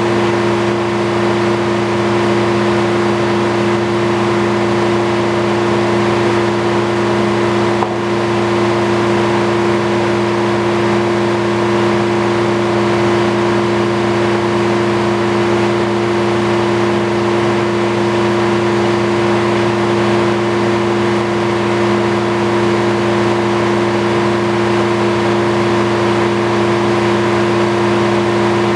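Antique circular sawmill running at a steady speed, its engine and spinning blade giving a constant hum with a strong even pitch and no change in speed.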